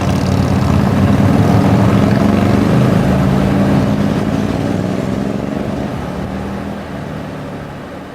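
Motorcycle engines running steadily, then fading gradually over the last few seconds.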